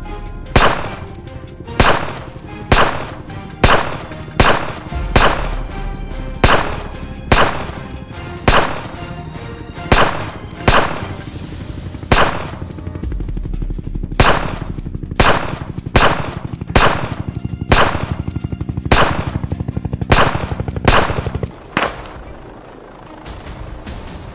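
Gunshots fired one after another at uneven intervals, about one a second, some twenty in all, each sharp crack trailing off briefly. They stop about twenty-one seconds in. A low steady musical drone runs underneath.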